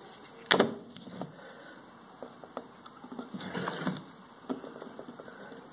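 Handling sounds at a workbench as a soldering iron and a reel of solder wire are brought out and used: one sharp click about half a second in, then scattered light taps and rubbing.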